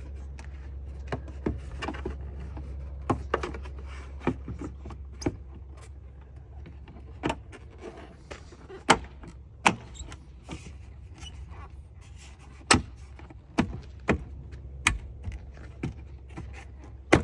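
Irregular sharp plastic clicks and knocks as bulb sockets and the tail light housing are handled and fitted back into place, over a steady low hum.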